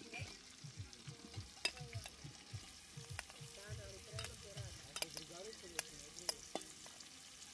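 Chopped onion and smoked ribs frying in pork lard in a cauldron, sizzling with sharp crackles, while being stirred with steady strokes of about three a second.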